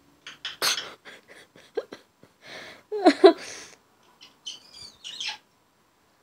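African grey parrot vocalizing: an irregular run of clicks, squawks and short whistles, loudest about three seconds in.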